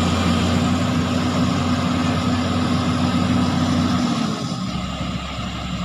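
Heavy machine's diesel engine running steadily; about four seconds in its note drops and it gets a little quieter.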